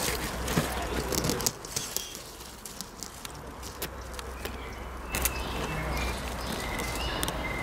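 Leaves and twigs rustling and clicking as a hand pushes foliage aside at a nest, mostly in the first second and a half. A few short, faint bird chirps follow in the second half.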